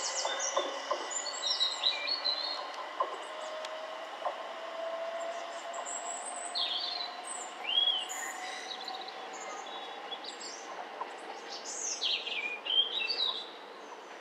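Small birds chirping and singing in short calls and trills, over the faint sound of an electric multiple-unit train running away into the distance, its low whine rising slowly in pitch.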